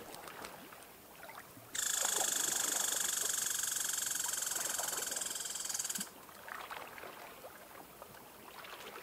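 A cicada's buzzing song: a loud, steady, finely pulsed high drone that starts abruptly about two seconds in and stops abruptly about four seconds later. Small water ripples lap and tick on the pebble shore around it.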